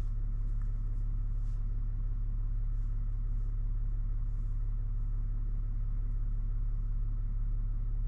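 A 3.0 Duramax inline-six turbodiesel idling with a steady, low hum, heard from inside the truck's cab.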